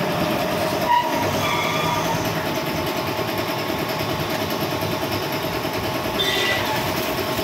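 Belt-driven 1 HP twin-cylinder piston air compressor, powered by a single-phase Godrej electric motor, running steadily while pumping up its tank.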